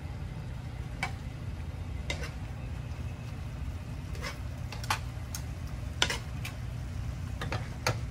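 Metal spoons clinking and scraping against a stainless steel sauté pan as a chunky tomato, pepper and steak sauce is stirred: short, irregular clinks, about ten of them, over a steady low hum.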